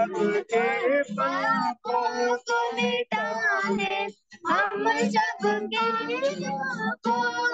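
A child singing, with held notes and short breaks between phrases; the voice cuts in and out abruptly, as over an online video call.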